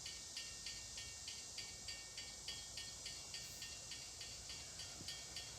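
Faint, evenly timed ringing of a railroad grade-crossing warning bell, about three strikes a second, over a steady high hiss.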